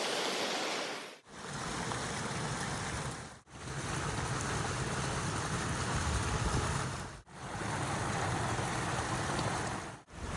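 Water running and splashing down the rock streambed of a pondless waterfall, a steady rushing that drops out briefly four times.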